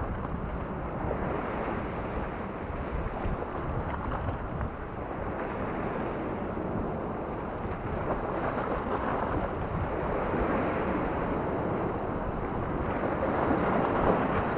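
Small sea waves breaking and washing against a rocky shore, mixed with wind on the microphone: a steady rushing noise that grows slightly louder near the end.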